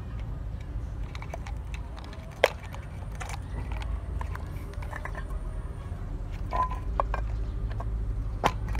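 Light clicks and taps of a homemade toy robot's tin-can and plastic parts being handled and fitted together, with one sharp click about two and a half seconds in, over a steady low rumble.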